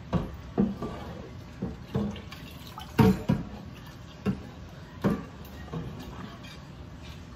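Dishes being washed by hand at a kitchen sink: a glass dish knocks and clunks repeatedly against the sink and other dishes, the loudest knock about three seconds in, with running water and dripping underneath.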